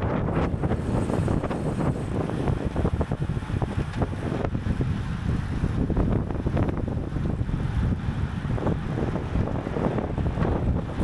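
Wind blowing across the microphone of a camera carried on a bicycle ridden at race speed: a steady low rush with irregular gusts and buffets.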